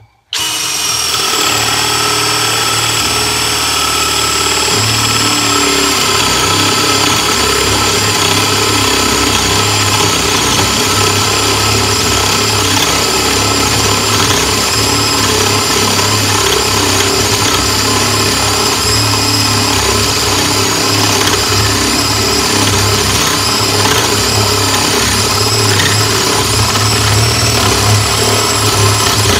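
Greenworks 24V brushless 1/2-inch cordless drill driver, in high gear (speed 2), boring a 1 1/8-inch spade bit down through a wooden board. The motor runs with a steady whine and hum under load, starting about a quarter second in and keeping going without stalling.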